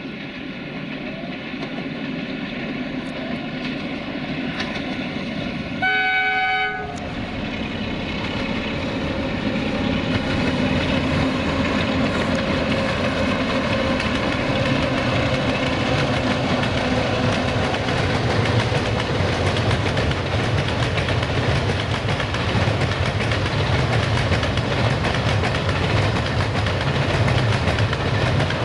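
Double-headed freight train hauled by two Electroputere 060-DA (LDE2100) diesel-electric locomotives with Sulzer engines. It gives one short horn blast about six seconds in. Then the diesels' drone and the wagons' rumble on the track grow louder as the train comes past.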